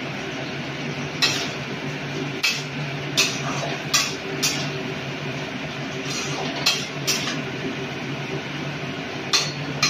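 Metal spatula stirring vegetables in a steel kadai, clinking and scraping against the pan about eight times at uneven intervals, over a steady background hiss.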